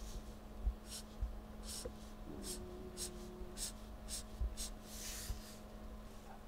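Felt-tip marker pen scratching across sketch paper in a dozen or so short hatching strokes, about two a second.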